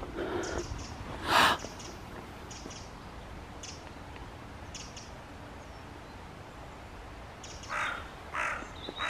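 Crows cawing: one loud call about a second and a half in, then a run of three harsh caws near the end.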